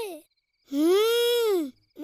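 A child's voice giving one drawn-out, wordless exclamation, about a second long, its pitch rising and then falling.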